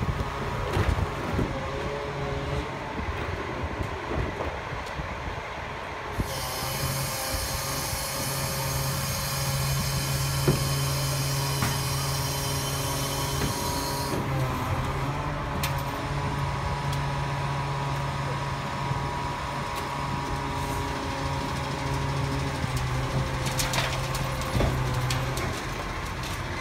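Rear-loader garbage truck's hydraulic packer running through a compaction cycle: a steady low hum of the engine-driven hydraulics, with a hissing whine for several seconds in the first half and a sharp metal clank about ten seconds in and another near the end as the blade moves.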